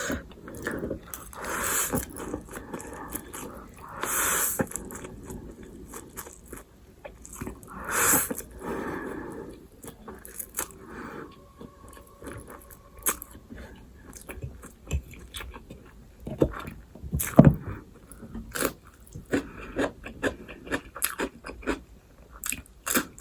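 Close-miked eating: chewing and biting Wai Wai chau chau instant noodles and sausage, a string of short crunchy clicks with a few scrapes.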